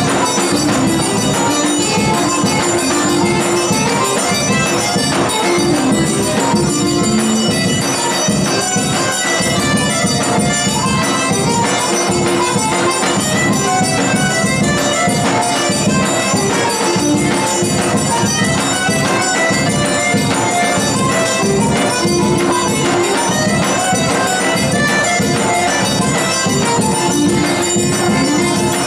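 Eight-bass button accordion playing an instrumental folk tune, with a zabumba bass drum beating a steady rhythm.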